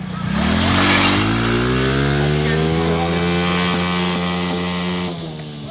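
A motor vehicle engine revving up, running loud and steady, then easing off about five seconds in.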